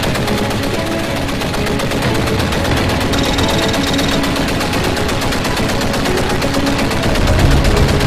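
Sustained automatic gunfire, a rapid unbroken run of shots, with a melody playing underneath.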